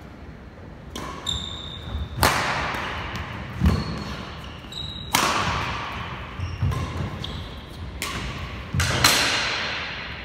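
Badminton rally in a large hall. Three loud racket strikes on the shuttlecock come about three seconds apart, each echoing on, with lighter hits, thudding footfalls and brief shoe squeaks on the court between them.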